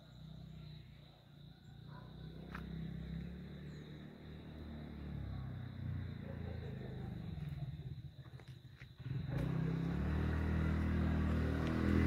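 A motor vehicle's engine running, growing louder and stepping up sharply about nine seconds in. A steady high insect trill sounds under it until about the same point.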